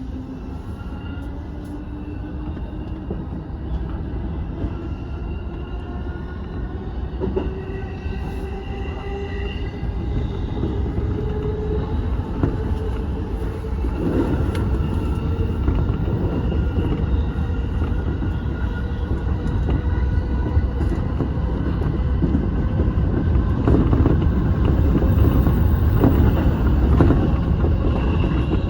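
Electric commuter train heard from on board. The traction motors give a whine that rises steadily in pitch as the train accelerates. The rumble of the wheels on the rails grows louder, with an occasional knock from the rail joints.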